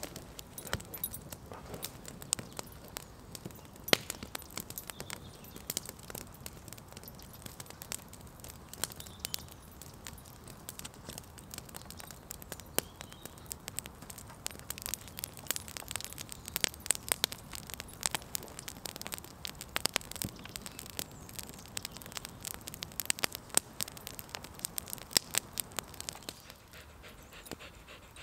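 Wood campfire crackling, with frequent sharp pops and snaps that come thicker in the second half.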